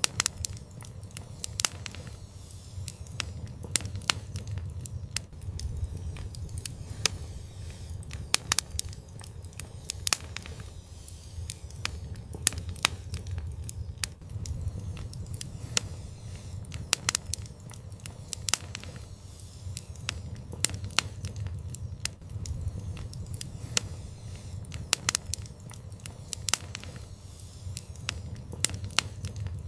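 Outdoor wood fire crackling: irregular sharp pops and snaps, several a second, over a steady low rumble.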